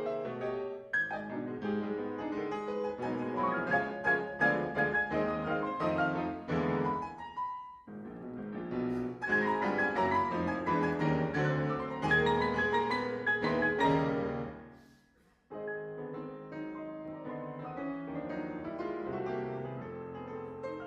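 Piano ensemble playing a ragtime rhapsody, dense and lively. About three-quarters through, the music stops for a moment, then resumes more softly.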